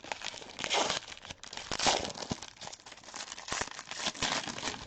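Plastic wrapping of a sealed football card box or pack crinkling and tearing as it is opened by hand, in irregular rustling bursts.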